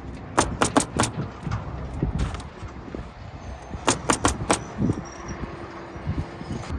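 Roofing nail gun firing in two quick runs of four shots, about half a second in and again about four seconds in, nailing down asphalt shingles, with lower thuds and handling noise between the runs.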